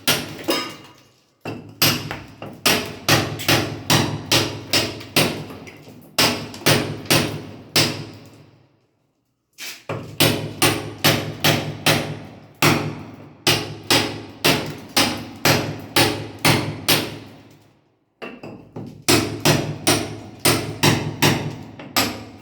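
A mason's hammer striking in steady runs of about three blows a second, each blow ringing briefly, with short pauses between the runs.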